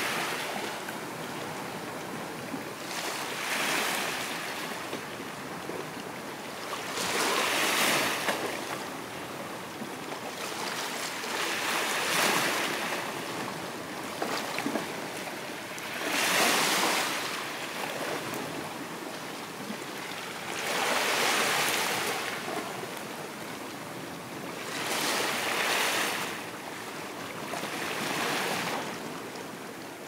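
Small sea waves breaking and washing up a sandy beach, a swell of surf about every four seconds over a steady hiss of water.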